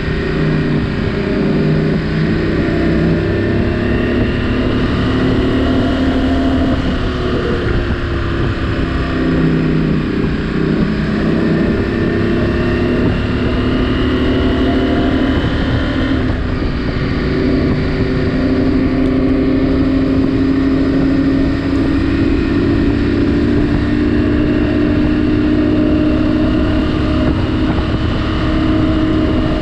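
KTM 790 Adventure R's parallel-twin engine running while the motorcycle is ridden, its pitch rising and falling slowly several times as the speed changes.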